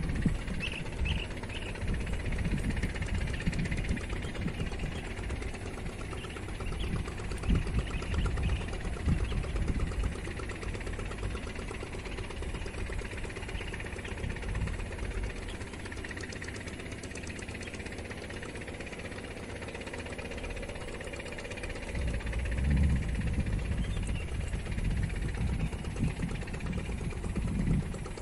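Wind buffeting the microphone on an open hilltop: a low, uneven rumble that swells and eases in gusts, with a stronger gust about three quarters of the way through.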